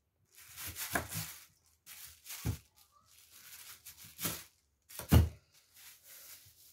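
Kitchen knife cutting through the stems where the leafy tops join white radishes (mooli) on a wooden chopping board: four or five sharp cuts and thunks about a second apart, the loudest a little after five seconds in, with plastic bag rustling faintly between them.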